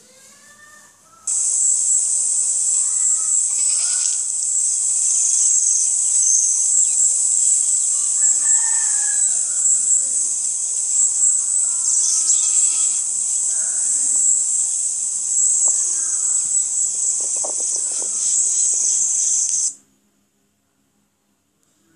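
A loud, steady, high-pitched drone, typical of insects calling in the undergrowth, starting abruptly about a second in and cutting off suddenly near the end. A few bird calls sound faintly beneath it.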